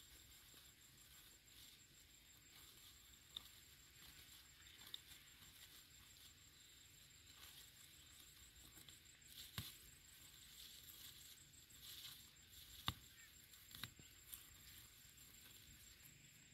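Near silence: faint background hiss with a thin steady high tone and a few soft scattered clicks, the sharpest about thirteen seconds in.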